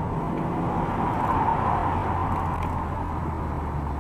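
Road noise of a moving car heard from inside the cabin through a dashcam: a steady engine and tyre drone with a low hum, swelling a little about a second and a half in.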